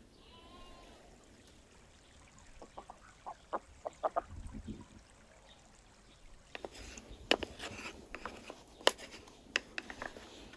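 White domestic ducks quacking in short calls, with scattered sharp clicks and taps in the second half.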